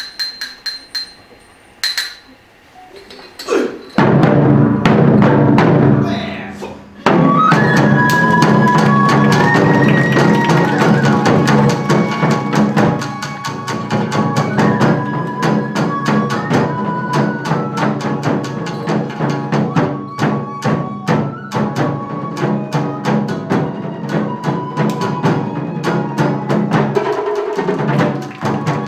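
Traditional Japanese ensemble music: a high bamboo flute melody over taiko drums and shamisen. It starts with a few sharp knocks, comes in loudly about four seconds in, breaks off briefly, then carries on with the flute melody over busy drumming.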